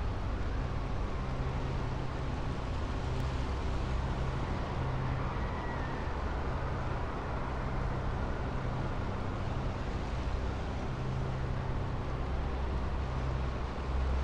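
Steady outdoor ambience: a low rumble under an even hiss.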